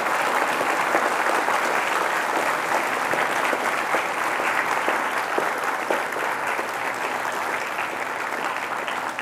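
Audience applauding steadily, many hands clapping at once, at the close of a talk.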